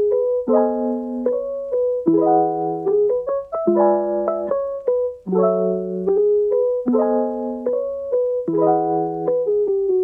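Background piano music: chords struck every second or two with a melody line over them.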